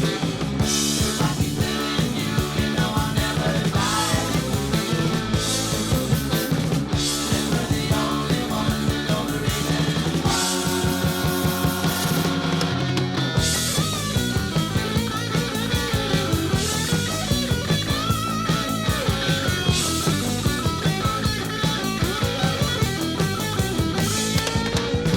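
Rock band playing an instrumental section of a song: drums keeping a steady beat with cymbals, under bass and electric guitar lines that bend in pitch.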